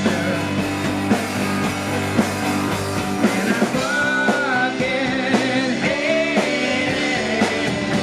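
Rock band playing a song live: drums, amplified instruments and a sung vocal, at a steady loud level.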